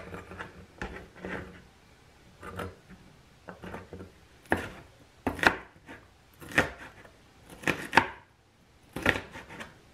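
Chef's knife dicing a yellow bell pepper on a plastic cutting board: irregular knocks of the blade striking the board, fainter at first and sharper and louder from about halfway through.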